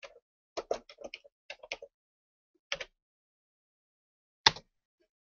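Computer keyboard keys clicking as a filename is typed: a quick run of about ten keystrokes in the first two seconds, then a lone click near the middle and a louder click about four and a half seconds in.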